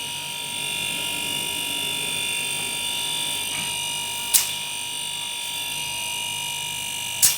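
Refrigerator compressor running with a steady, high-pitched whine made of several tones. Two sharp clicks cut through it, about 4 seconds in and near the end.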